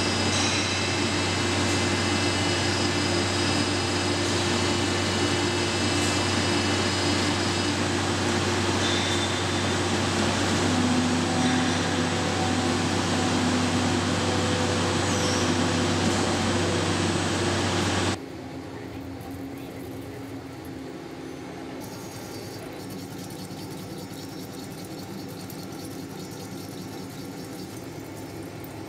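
Steady hum and whine of heavy CNC metal cutting, a vertical turning lathe machining a large workpiece, with a low drone and several held tones. About 18 seconds in it drops suddenly to a quieter steady machine noise of crankshaft rough milling.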